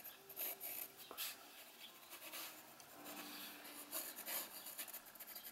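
Graphite pencil drawing on textured watercolour paper: a series of short, faint scratching strokes as lines are sketched in.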